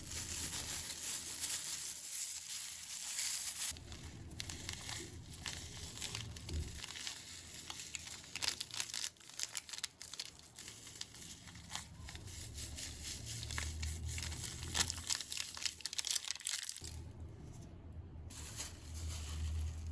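Crinkling and rustling of something being handled, with many small crackles and clicks.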